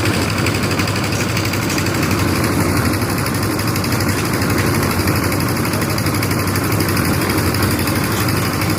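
Construction machinery engine running steadily at a constant speed, with a fast, even beat.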